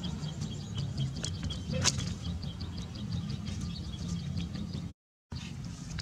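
Outdoor ambience: a steady low rumble under a run of rapid high chirps, about four a second, with one sharp click near two seconds in and a brief dropout to silence about five seconds in.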